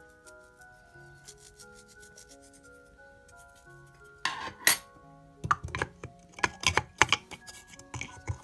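Background music playing a simple melody, with loud clattering and scraping of kitchen utensils and dishes starting about four seconds in.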